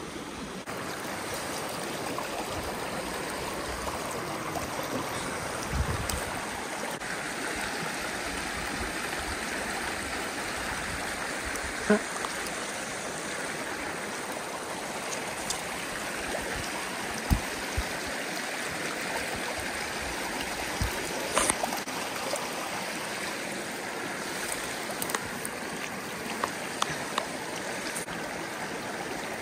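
Shallow spring creek running over a stony riffle, a steady burbling rush of water, with a few brief knocks along the way.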